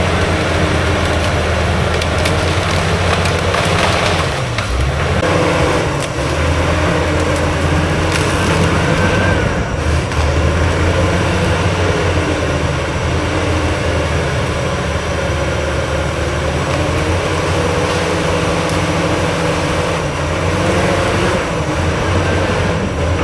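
Diesel engine of a heavy earthmoving machine running steadily under load while clearing land, with wood cracking and crunching at times as vegetation is pushed over or broken.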